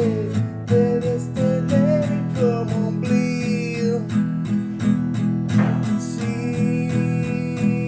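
Rock music: strummed guitar over a steady beat, with a held lead melody line on top and a brief swelling noise, like a cymbal wash, about six seconds in.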